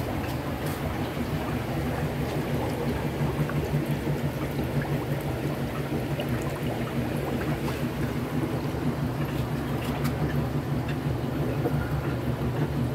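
Aquarium filtration running: a steady low hum with the trickle and bubbling of moving water.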